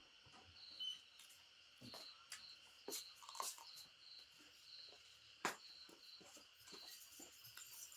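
Near silence: faint insects chirping steadily in the background, with a few short clicks and smacks of eating, the loudest about five and a half seconds in.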